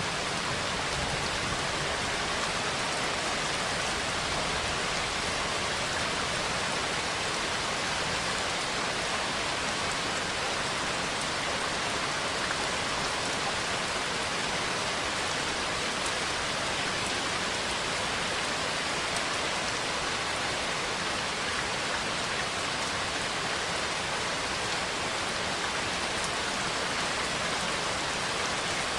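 Steady, even rain falling, with no thunder.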